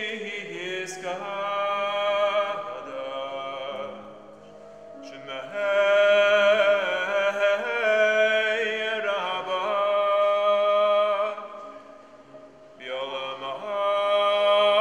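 A man chanting a prayer solo in long, wavering, drawn-out phrases, with two short breaks for breath.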